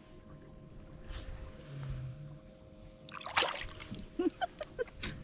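Water splashing about three seconds in, followed by a series of short plinking drips.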